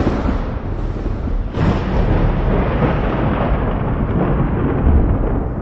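Rolling thunder sound effect: a deep, continuous rumble with a fresh crack-and-roll about a second and a half in.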